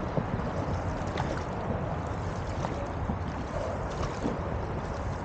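Water sloshing and lapping close to the microphone as a dragon boat crew paddles alongside, with paddle blades dipping and splashing. A steady low wind rumble sits on the microphone.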